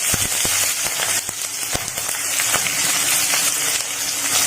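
Tempering sizzling in hot oil: mustard and cumin seeds spluttering with green chillies, a steady sizzle with scattered sharp pops.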